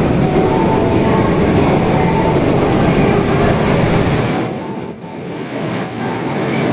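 Osaka Metro 22 series subway train running at the platform, with a loud, steady rumble of wheels and running gear that drops briefly about four and a half seconds in.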